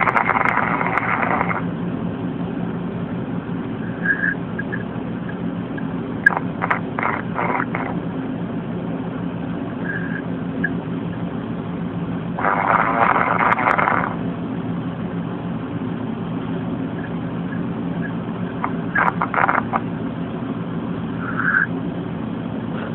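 A man snoring in his sleep: two snores, each about a second and a half long, one at the start and one about halfway through, over a steady low hum, with a few short clicks in between.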